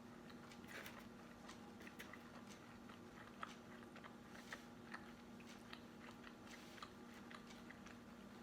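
Faint chewing and small wet clicks of a person eating, scattered irregularly, over a steady low hum.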